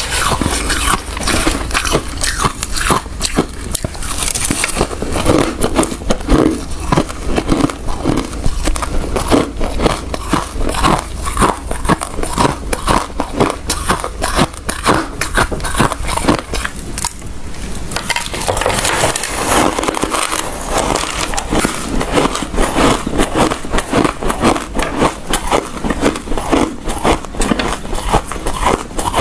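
A person biting and chewing ice close to the microphone, a dense run of loud crunches and crackles that eases briefly about two-thirds of the way through.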